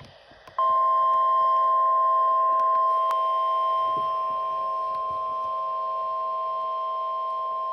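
Emergency Alert System alert tone on a weather radio: a steady electronic tone of two constant pitches, starting about half a second in and held without a break, marking the start of a severe thunderstorm watch alert.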